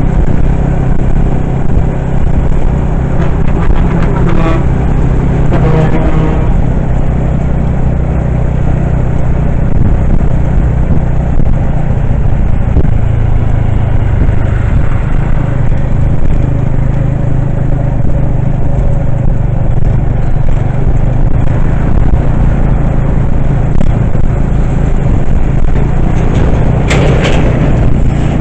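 Steady road and engine rumble of a vehicle driving along, heard from on board, with a brief higher-pitched sound a few seconds in and another near the end.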